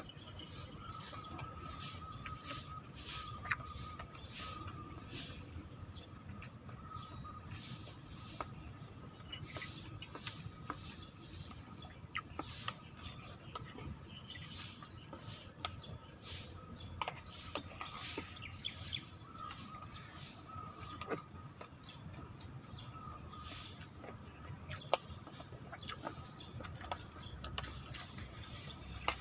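Outdoor ambience of small birds chirping irregularly over a steady high-pitched hiss, with occasional sharp light clicks of a spoon against a plastic bowl.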